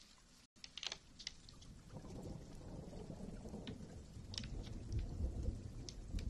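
A few soft scattered clicks, then from about two seconds in a low rumbling noise that builds and grows louder.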